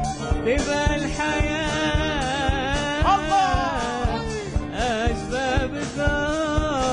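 Live Middle Eastern-style band music: a wooden flute melody and a man singing over a held low tone, with percussion keeping a steady beat.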